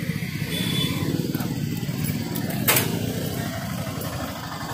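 Motorcycle engine running steadily at low revs, with one short sharp click about two and a half seconds in.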